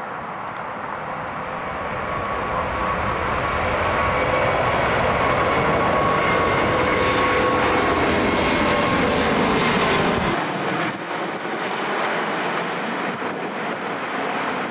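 Airbus A380's four jet engines passing low overhead with gear down: a rushing jet roar with a steady whine in it, swelling to its loudest over several seconds, then falling away as the low rumble drops out abruptly about ten seconds in.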